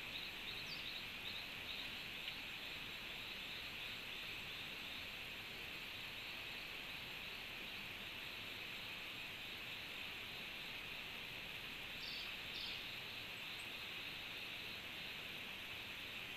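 Steady, high-pitched chorus of tropical insects buzzing without a break, over a soft even hiss. A few brief higher chirps come through about twelve seconds in.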